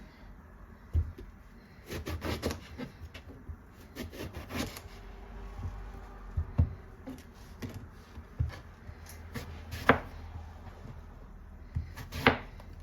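Kitchen knife chopping eggplant into cubes on a cutting board: irregular knocks of the blade on the board, some in quick runs, with pauses between.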